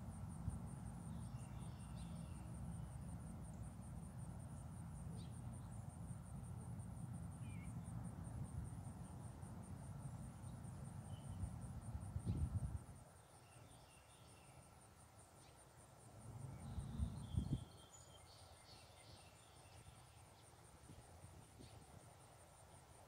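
An insect trills steadily and rapidly at a high pitch, with a few short bird chirps scattered through. A low wind rumble on the microphone gusts twice and dies down about halfway.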